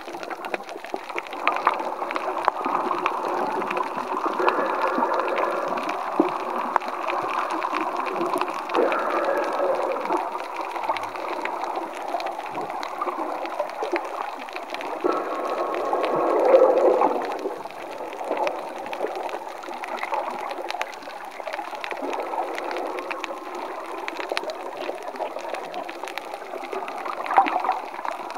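Muffled underwater sound picked up by a camera beneath the surface: water sloshing and gurgling around it, with faint scattered clicks.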